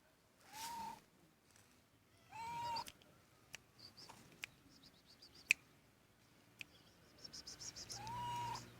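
A cat meowing three times, each meow short, rising and then held briefly. Between the meows come a few sharp clicks, one of them loud about halfway through, and near the end a fast run of light ticks.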